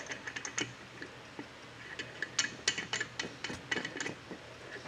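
Irregular light metallic clicks and rubbing of a brass air regulator being hand-threaded onto an SCBA cylinder valve.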